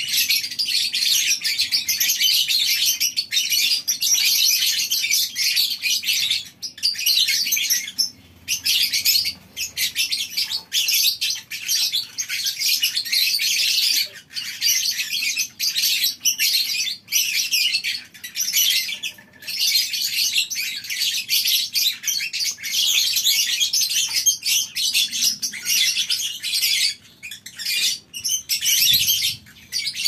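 A colony of lovebirds chattering together: a dense, continuous mass of high-pitched chirps and squeaks, with a few brief lulls.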